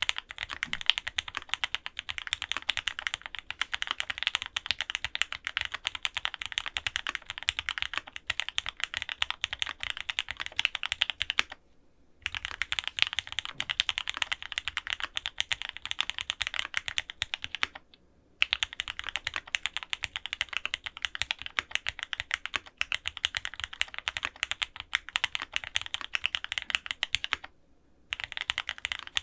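Rapid, continuous typing on a custom F1-8X mechanical keyboard with lubed Gateron Oil King linear switches, an FR-4 plate, a polycarbonate bottom and GMK doubleshot ABS keycaps. The typing stops briefly three times before resuming.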